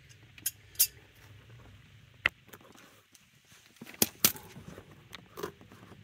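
Scattered sharp metal clicks and clinks, about half a dozen at irregular spacing, the loudest pair close together about four seconds in, from a hand tool working the upper caliper bolt of a front disc brake.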